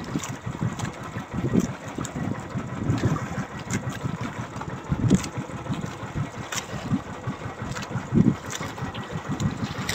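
Uneven low rumble on a small outrigger fishing boat at sea, surging irregularly, with a few light clicks.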